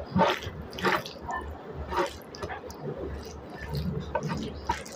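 Fingers working rice into a wet pork curry on a plate: soft, sticky squishes and clicks at irregular moments, about one a second.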